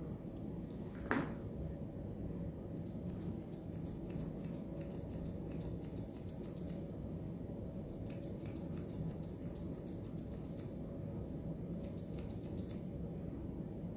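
Grooming thinning shears snipping rapidly through a dog's facial fur, in three runs of quick cuts with short pauses between. A short falling squeak sounds about a second in, over a steady low hum.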